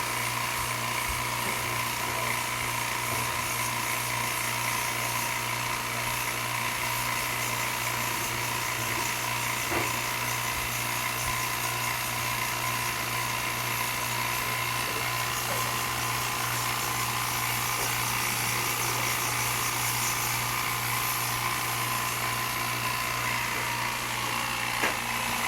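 High-pressure washer running steadily with a dense hiss of water spray, rinsing dissolved black mould and dust off an air conditioner's aluminium heat-exchanger fins. The motor's hum and whine hold steady, and the whine sinks a little in pitch near the end.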